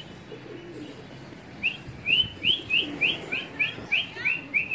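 A quick run of about ten short, high, rising whistled chirps, roughly three a second, starting about a second and a half in.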